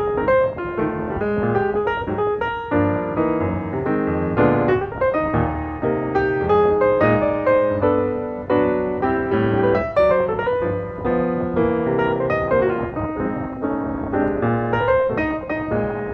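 Background piano music: a steady flow of quick notes.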